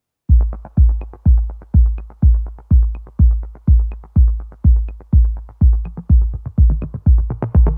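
Electronic dance music with a heavy kick drum on every beat, about two a second, and light ticking percussion between; it starts just after the opening, and more layers come in near the end.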